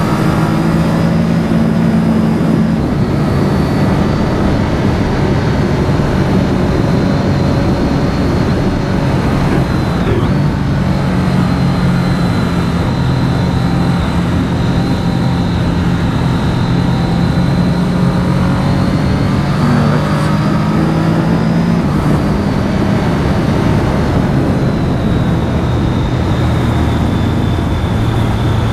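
Triumph Street Triple R's three-cylinder engine running at steady moderate revs on the move, its pitch shifting a few times with throttle and gear changes, under a constant rush of wind noise.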